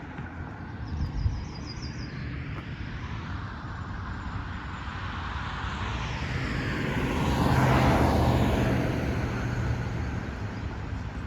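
A motor vehicle passing by on the road, its engine and tyre noise rising to the loudest point about eight seconds in and then fading, over steady background traffic. A bird chirps in a short quick series near the start.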